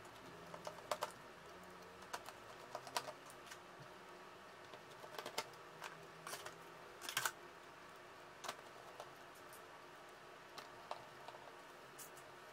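Faint, irregular clicks and taps of a screwdriver driving small screws into a wall clock's back cover, with the clock handled on the table.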